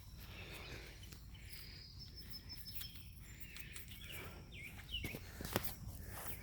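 Faint outdoor ambience with small birds chirping now and then, and a sharp click about five and a half seconds in.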